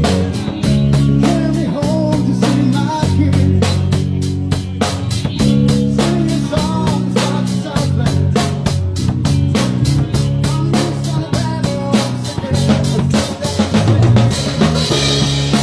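Live rock band playing, the drum kit keeping a steady beat under bass and electric guitar.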